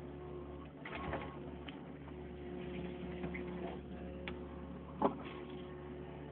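Backhoe working: its engine runs steadily with a whine, and a few metallic knocks sound, the loudest about five seconds in.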